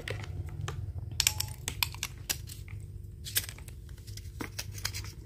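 Irregular light clicks and scrapes of a metal flashlight being handled as an 18650 battery is slid into its body and the barrel is screwed back together.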